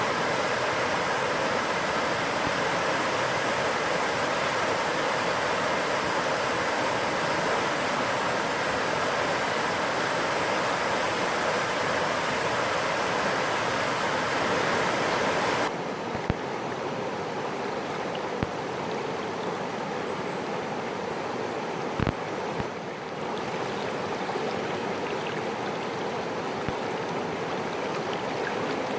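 A mountain valley stream rushing steadily over its bed. About halfway through the sound changes abruptly to a softer, less hissy flow, and a few sharp knocks stand out over it.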